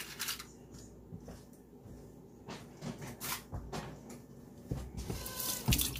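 Hands being rubbed dry with a cloth dish towel: short rustling swishes of fabric, the longest near the end, with a few soft thumps.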